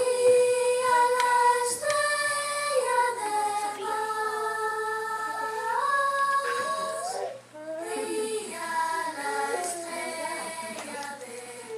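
A high solo voice singing a slow melody in long held notes, pausing briefly about seven seconds in.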